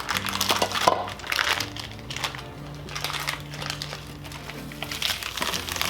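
Plastic sauce packets crinkling and crackling as they are handled and emptied into a skillet, over background music with held low notes.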